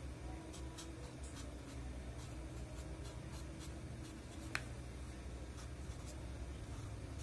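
Felt-tip marker scratching across fabric pocket lining in a series of short signature strokes, with one small click about four and a half seconds in, over a faint low hum.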